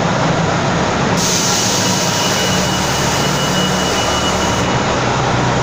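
Transit bus engines running in an enclosed garage, a steady low hum under loud noise. About a second in, a hiss with a thin high whistle starts, then cuts off sharply about three and a half seconds later.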